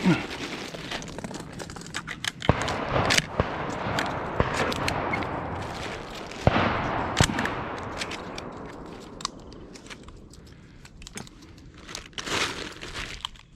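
A series of sharp cracks and knocks, the strongest about six and seven seconds in, over a rustling noise that slowly fades.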